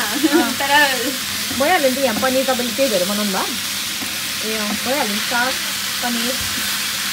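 Spinach sizzling as it fries in a non-stick frying pan, stirred with a wooden spoon. Voices sound over it for the first five seconds or so.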